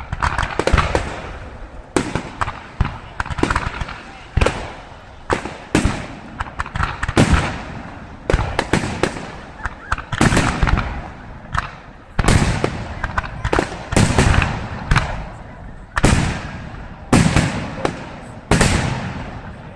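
Aerial fireworks shells bursting in a dense, irregular run of loud bangs, often several a second, each followed by a short ringing tail, with crackle in between.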